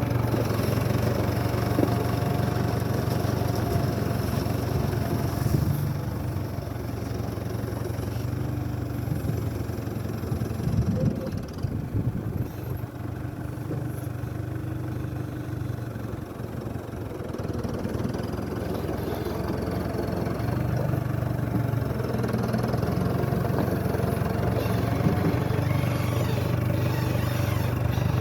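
Case CS94 tractor's diesel engine running under varying load. It eases off for a stretch in the middle, with a few knocks about eleven seconds in, and runs harder again after about twenty seconds.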